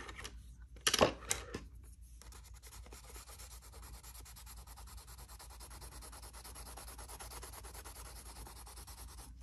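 Coloured pencil scribbling back and forth on a painted paper page, a steady rasping scratch. There are a couple of sharp clicks about a second in.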